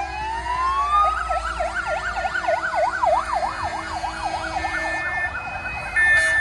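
Fire engine sirens in a passing emergency-run convoy: one siren rises over the first second, then switches to a fast yelp sweeping up and down about three times a second, with other sirens overlapping. A low engine rumble runs beneath, and a steady multi-tone signal cuts in near the end.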